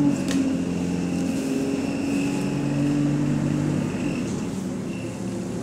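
Bus running noise heard from inside the passenger saloon: a steady engine and drivetrain drone whose pitch shifts a little, with a thin high whine over it. A sharp click about a third of a second in.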